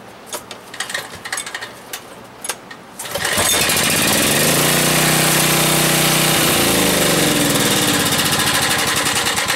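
Portable generator's small engine, running on natural gas, pull-started: it fires about three seconds in and keeps running loudly, its pitch climbing and then dropping back as it settles.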